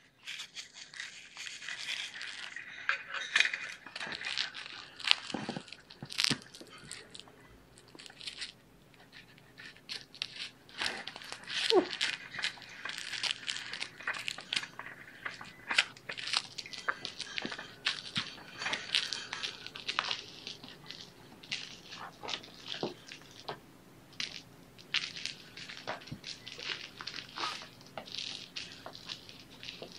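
Mylar crinkle-ball toys crinkling and crackling as kittens bat, pounce on and chew them: an irregular, uneven rustle full of sharp little clicks that swells and fades in bursts of play.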